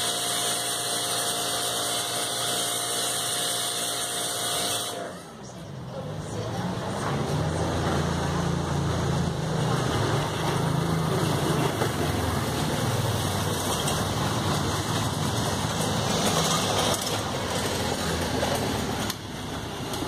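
Stihl RE 109 electric pressure washer running, with a steady motor hum and the hiss of the spray, stopping about five seconds in. After that, a motor vehicle's engine runs low and steady, growing louder at first, until near the end.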